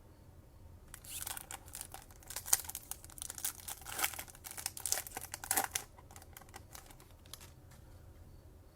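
A 2020 Topps Chrome trading-card pack wrapper being crinkled and torn open: a quick, uneven run of sharp crackles that begins about a second in and stops about six seconds in.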